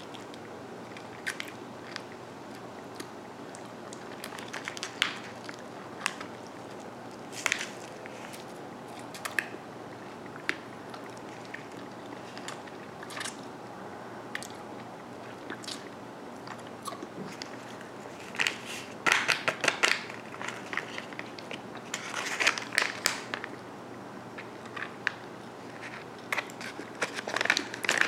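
Close-miked wet mouth sounds of licking and sucking a sugar-coated Sour Patch hard lollipop: scattered clicks and smacks, busier in a few clusters in the second half. Near the end a plastic candy wrapper rustles.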